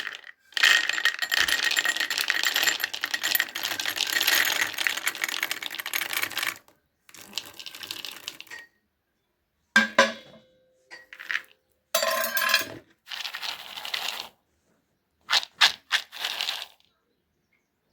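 Freshly roasted peanuts rattling and clattering against a pan: a long dense rattle of about six seconds, then several shorter bursts broken by abrupt silences.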